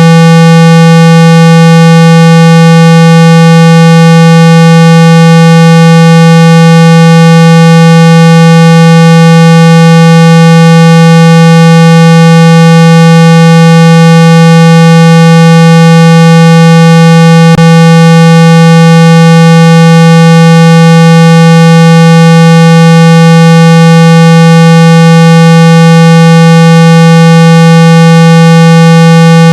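A steady, buzzy 165 Hz test tone played at full volume without any change. It is a speaker-cleaning tone, meant to shake water and dust out of a phone speaker.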